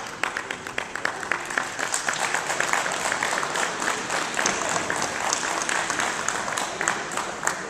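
Spectators clapping at the end of a judo match: a dense patter of many hands, dying away near the end.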